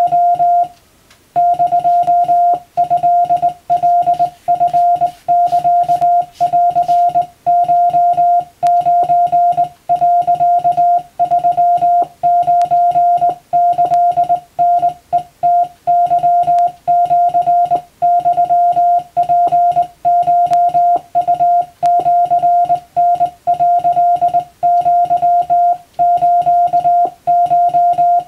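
Morse code (CW) being sent: a single steady beep tone keyed on and off in quick dots and dashes, with short gaps between characters and a slightly longer pause about a second in.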